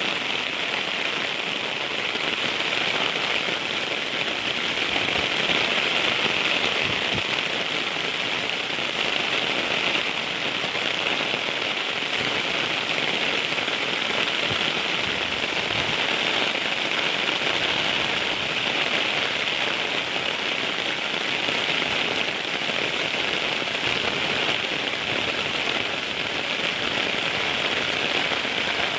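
Heavy rain falling steadily, an even dense hiss of drops with a fine crackling patter.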